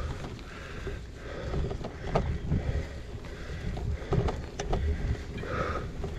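Gravel bike riding over rough ground: wind rumbling on the microphone, with tyre noise and scattered rattling knocks from the bike.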